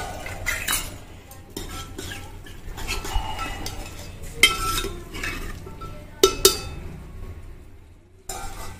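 Long metal ladle stirring and scraping inside a large metal cooking pot of simmering curry, with irregular clinks of metal on metal; two sharper clinks come close together about six seconds in.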